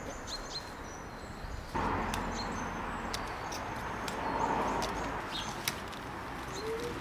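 Pepper plants rustling as long green peppers are picked by hand, with small clicks from the stems and leaves and small birds chirping in the background. The rustling gets louder about two seconds in.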